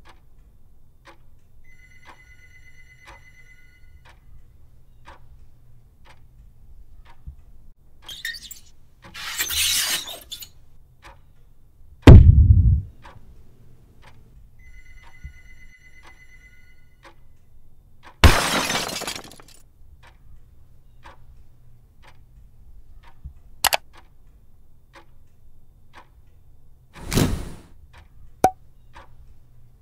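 A string of edited sound effects: a short electronic ringing tone twice, a whoosh, a heavy low thud (the loudest event), a crash that tails off, a couple of sharp clicks and another whoosh, over faint steady ticking.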